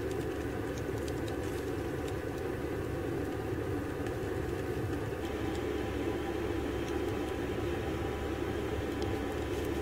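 Steady mechanical hum of a running engine, unchanging in pitch and level, with a few faint ticks.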